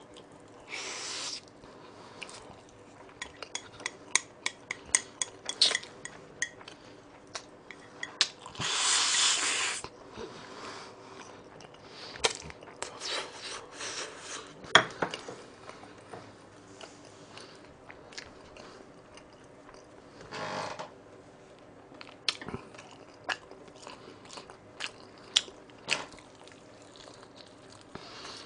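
Close-miked eating of bibim noodles: many sharp clicks of chopsticks against a plate, chewing and mouth sounds, and noisy slurps of noodles, the longest and loudest one around nine seconds in.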